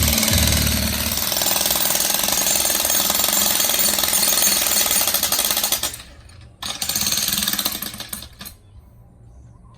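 Jackhammer hammering rapidly and steadily. It stops for about half a second near the middle, runs again for two seconds, then cuts off.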